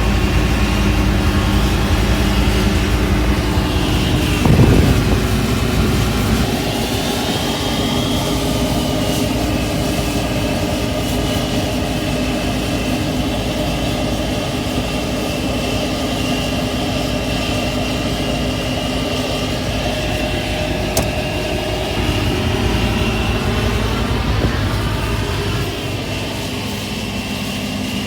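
Engine of heavy harvest machinery running steadily. Its note shifts about six seconds in and again near the end.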